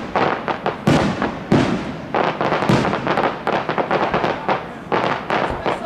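Aerial fireworks shells bursting in quick succession, sharp bangs about two a second, each trailing off in a rumbling echo.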